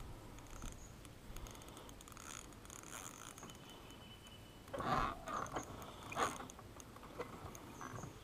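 Ultralight spinning reel clicking and ratcheting as the line is worked against a hooked catfish that keeps pulling. Two louder rough bursts come about five and six seconds in.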